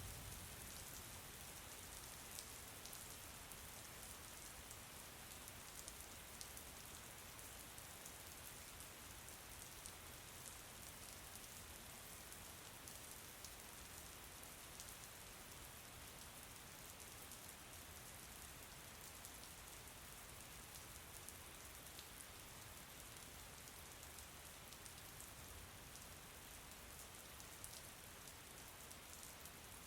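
Steady, faint rain falling, with fine patter of individual drops.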